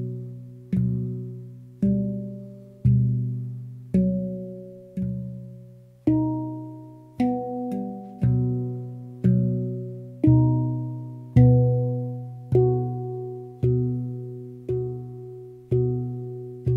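Pantheon Steel Halo handpan (2015, Onoleo scale) played by hand: single notes struck about once a second, each ringing out and fading, with the low note sounding again under most strikes and higher tones above it.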